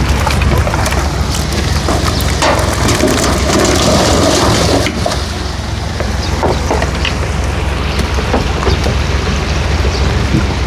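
Crucian carp being released from a live-fish truck into the pond: water gushing and splashing, with a steady low engine rumble underneath. The rushing swells for a few seconds about two seconds in.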